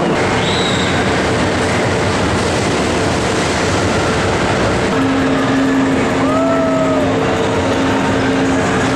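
Loud, steady din of amusement rides running inside a large exhibition hall: a dense rumbling noise with a steady hum. A short squeal rises and falls about six seconds in.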